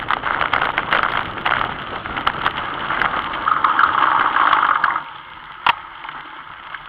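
Bicycle rolling fast over a rough dirt track: tyre noise with a dense run of rattles and clicks. About five seconds in the noise drops away as the bike slows, and a single sharp click follows.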